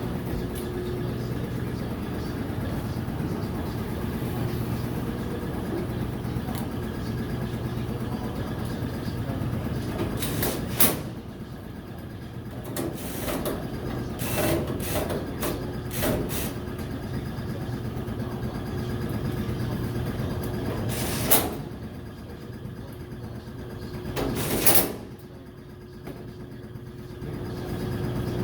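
Metal clanks and knocks from reassembling a Speed Queen commercial dryer: a few sharp loud clanks and a run of smaller knocks as parts and panels are handled, over a steady machine hum.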